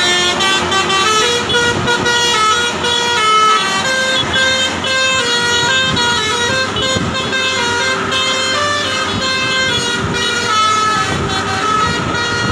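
Bus 'telolet basuri' musical air horn playing a tune: a run of loud, stepped horn notes changing pitch every fraction of a second.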